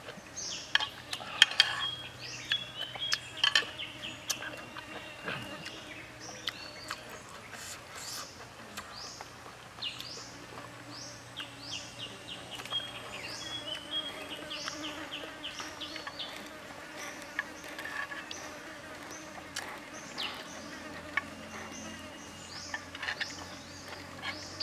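Forest ambience: small birds or insects chirping, in many short, high notes that fall in pitch, with scattered clicks and a faint low steady hum that stops about halfway through.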